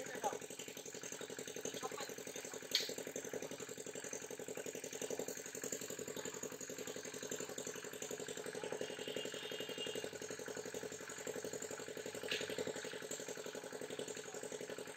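A small engine running steadily at idle, with a fast, even rattle. There is a sharp click about three seconds in and a fainter one near the end.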